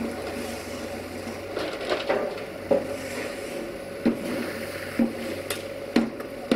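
CAT 302.5C mini excavator running with a steady whine while it works sand with its bucket. Sharp metallic clanks from the bucket and arm come about once a second, most of them in the second half.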